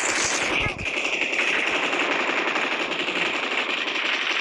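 Rapid automatic gunfire, a continuous burst of fast shots.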